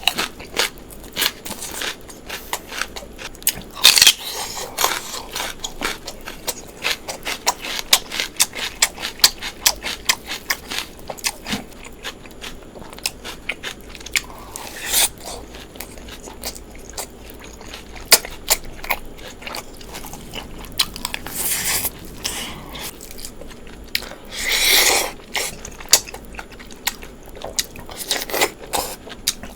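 A person chewing and biting food close to the microphone: a continuous stream of wet mouth clicks and smacks, broken several times by louder crunchy bites, the longest one near the end.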